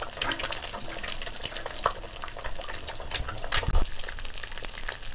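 An egg frying in hot mustard oil in a wok, sizzling with steady crackles. A dull knock comes about three and a half seconds in.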